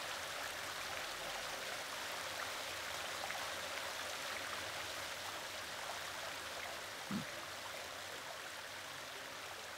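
Garden wall fountain splashing steadily: water falling from a lion-head spout and three small jets into a tiled pool.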